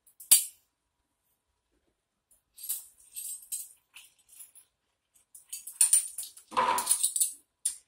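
Metal measuring spoons and kitchen utensils clinking and jingling in a few short bursts, with a sharp click near the start.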